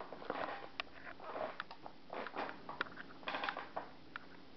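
A baby eating pasta, making a run of small, irregular wet mouth clicks and smacks.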